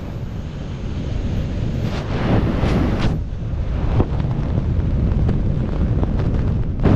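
Freefall wind rushing over a skydiver's helmet-camera microphone, a loud steady buffeting noise with a few brief surges.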